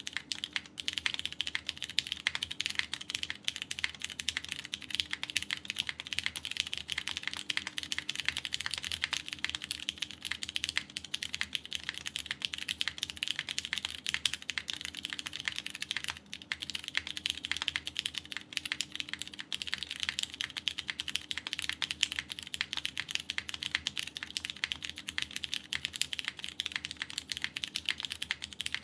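Continuous typing on a KBDfans Tofu TKL mechanical keyboard with lubed Cherry MX Purple tactile switches, a polycarbonate plate in PCB gasket mount and GMK keycaps: a dense stream of key clacks with a brief pause about 16 seconds in.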